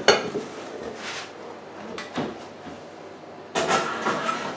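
Oven being loaded: a knock as a lidded glass baking dish is picked up, then a scraping slide about three and a half seconds in, the loudest sound, as the dish goes onto the metal oven rack through the open oven door.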